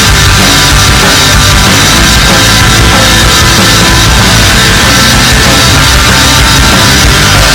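Loud, dense heavy rock music with a drum kit.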